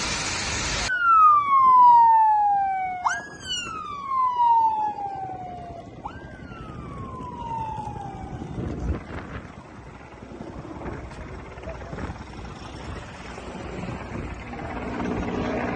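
Emergency vehicle siren wailing in three cycles, each a sharp rise followed by a slow falling glide. It fades out about halfway through, leaving faint background noise.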